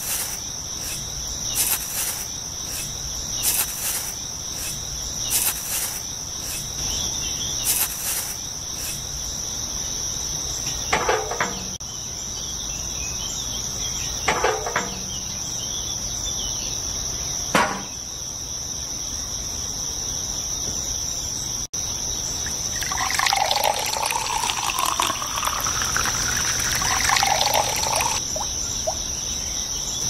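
Steady high-pitched chirring of crickets, with short scrapes and knocks about once a second early on and a few single knocks later. In the last several seconds there are wavering sounds that glide up and down in pitch.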